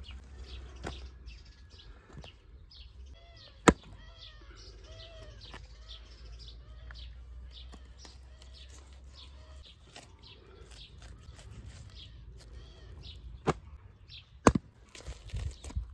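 Hatchet striking a lamb carcass on a wooden chopping block: three sharp chops, one about four seconds in and two close together near the end. Birds chirp in the background.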